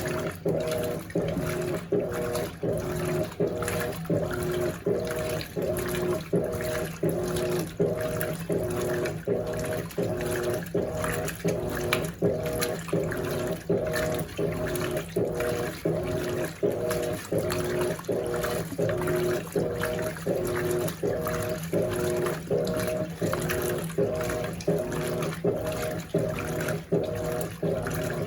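Electrolux LAC16 top-loading washing machine agitating in its rinse at high water level. Its motor, a 1/4 hp WEG taken from an LT13B, hums in short reversing strokes, about one and a half a second, while water sloshes in the tub.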